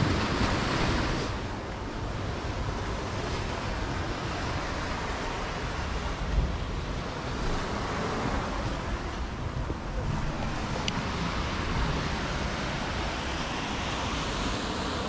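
Sea surf washing onto the shore, swelling and easing every few seconds, with wind rumbling on the microphone.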